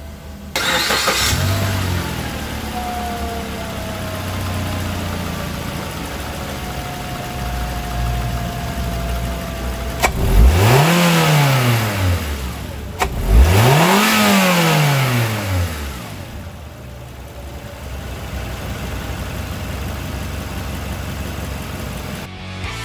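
2012 Suzuki Kizashi's 2.4-litre four-cylinder engine starting about half a second in and settling to idle. It is then revved twice, each rev rising and falling in pitch, and returns to a steady idle.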